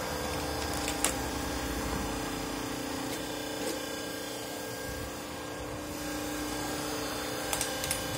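Electric hydraulic log splitter running, its motor and pump giving a steady hum, with a few sharp cracks about a second in and near the end.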